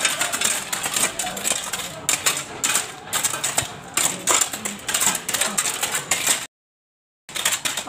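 Several metal hoes chopping and scraping into dirt and weeds, an irregular clatter of overlapping strikes. The sound cuts out completely for most of a second near the end.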